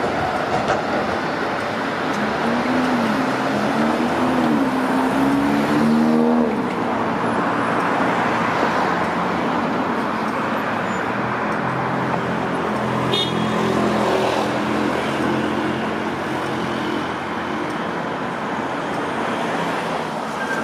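Road traffic on a busy street, a steady wash of tyre and engine noise. A few seconds in, one vehicle's engine wavers in pitch and then rises as it accelerates.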